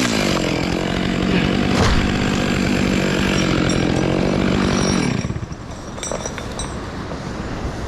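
Chainsaw engine running at steady high revs, then dropping away about five seconds in, leaving a lower, quieter sound with a few light clicks.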